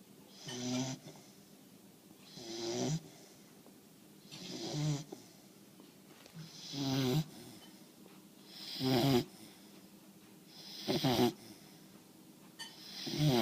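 Rhythmic snoring, one snore about every two seconds, seven in all. Each snore swells to a loud rasp and stops abruptly, with faint breathing in the gaps.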